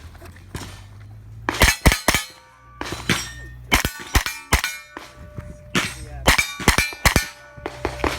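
Rapid shots from a 9mm pistol-caliber carbine in several quick strings, each hit answered by the clang and ring of a steel plate.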